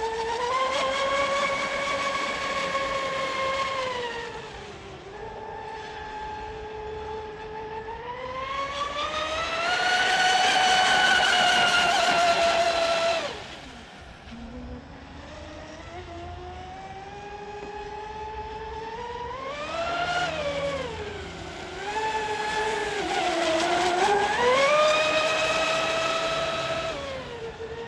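Oxidean Marine Animal 2 RC speedboat on 42 mm props running at speed: a high-pitched motor whine rising and falling in pitch with throttle and passes. The whine is loudest for a few seconds before cutting back sharply about halfway through, then climbs again in two more surges near the end. The boat is running well after a motor mount repair.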